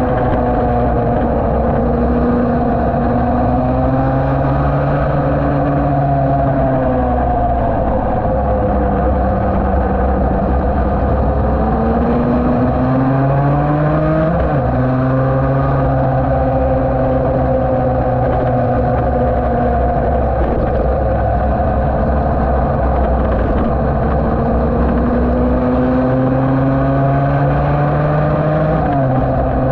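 Yamaha TD1B 250 cc two-stroke twin road racer at speed on track. The engine note climbs through the revs and drops sharply at an upshift about halfway through and again near the end, with a gentler fall in pitch early on as it rolls through a bend.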